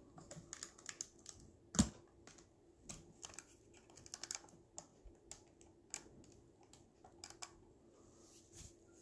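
Irregular light clicks and taps, some in quick runs, with one sharper knock about two seconds in, over a faint steady hum.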